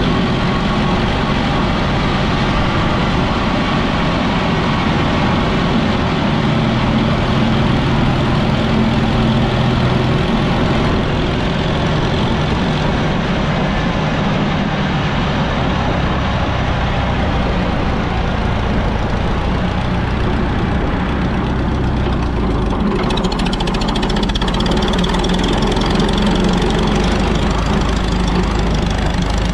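Minneapolis-Moline ZB tractor engine running steadily while the tractor is driven, with a change in its low note about two-thirds of the way through.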